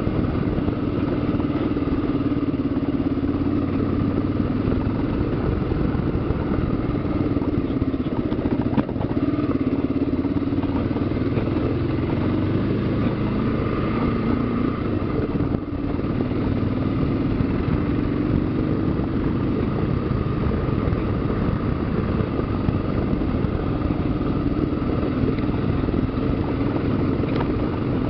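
Kawasaki KLR dual-sport motorcycle's single-cylinder engine running steadily at a low trail pace, its note rising and falling a little with the throttle. There is one brief sharp knock about a third of the way through.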